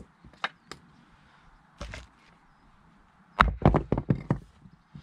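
Wooden toy axe striking a small wooden toy log on a chopping block: a few light wooden clicks as the log is set in place, then a quick cluster of loud wooden knocks about three and a half seconds in as the log halves are knocked apart and fall.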